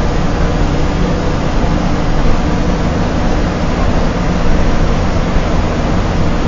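Bus engine and tyre noise heard from inside the cabin while driving at a steady speed: a constant low drone under an even rushing hiss.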